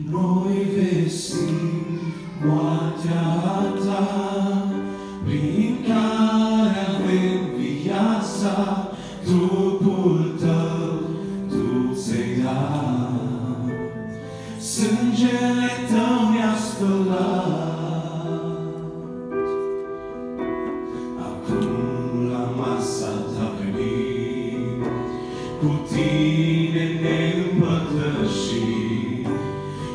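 A male vocal trio singing a Romanian Christian hymn together through microphones.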